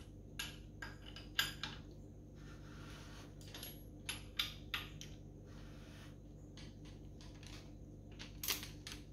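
About a dozen sharp, irregularly spaced metallic clicks and clinks from a socket and torque wrench on the connecting-rod nuts of a V8 engine block, as the rod-bolt torque is rechecked.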